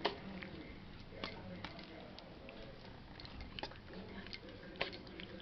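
Metal spoon stirring grated cucumber and yogurt in a stainless steel bowl: a soft wet mixing sound broken by irregular light clicks of the spoon against the bowl's side.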